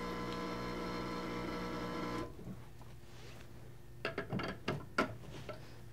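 Rocket Appartamento espresso machine's vibratory pump buzzing steadily as water flushes through the group head in a purge to stabilize the brew temperature. The buzzing stops about two seconds in. A few sharp metal clicks and knocks follow as the portafilter is handled at the group head.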